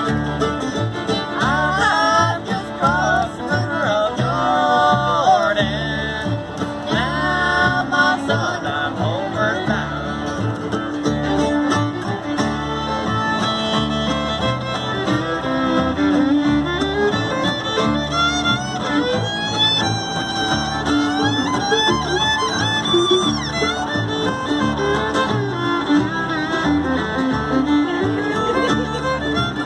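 Live bluegrass played by a small acoustic string band. A fiddle carries the melody over a strummed acoustic guitar and an upright bass keeping a steady beat.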